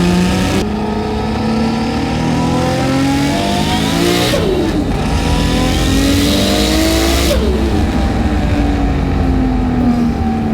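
HKS 2.8-litre stroker RB26 straight-six with a single T04Z turbo, heard from inside the R32 GT-R, pulling hard up through the gears with two upshifts, about half a second and about four seconds in. The turbo whistles as it comes on boost. Near the end the throttle comes off and the revs fall away.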